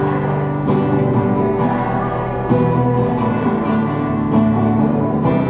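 Instrumental music between sung lines of a romantic pop song, with sustained notes and no singing.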